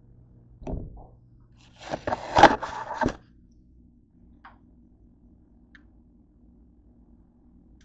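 Handling noise: a thump about a second in, then a second or so of scraping and rustling with a few sharp knocks, and faint room hum after that.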